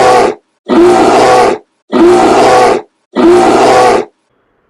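A bear growl sound effect, the same growl played four times in a row, each about a second long.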